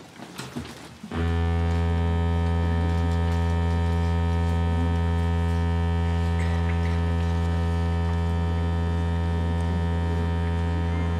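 Theatre's opening buzzer: a loud, steady electric buzz that starts abruptly about a second in, holds for about ten seconds, then cuts off sharply.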